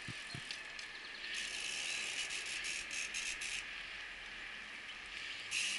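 Bicycle rear freehub ratcheting: a run of rapid clicks lasting about two seconds as the wheel coasts or is turned, with a short burst again near the end.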